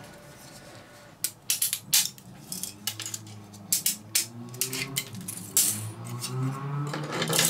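Crisp snaps and cracks of breakaway support being pulled out of a 3D-printed plastic spacer by hand, starting about a second in and coming in quick irregular clusters. Quiet background music runs underneath.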